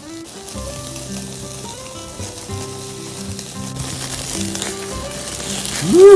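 Pork belly slices sizzling on a wire grill over a charcoal fire, the crackle growing louder over the second half. Near the end comes a short, loud tone sliding upward.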